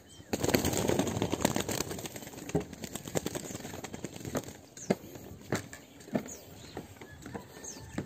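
Footsteps knocking on loose wooden boardwalk planks, an uneven knock every half second or so, with a rush of rustling noise for about the first two seconds.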